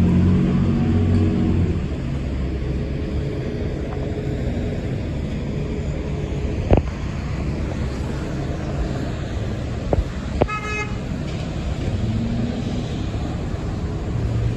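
City street traffic. A heavy vehicle's engine, such as a passing bus, hums low for the first couple of seconds, then there is steady road noise with a few sharp knocks, and a short vehicle horn toots about three quarters of the way through.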